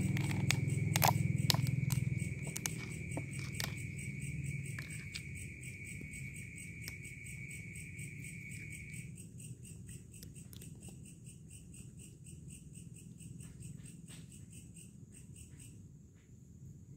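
Night insects trilling steadily. One high trill stops about nine seconds in and a pulsing one takes over. Over it, a cat crunches dry kibble in sharp irregular clicks, thickest in the first few seconds.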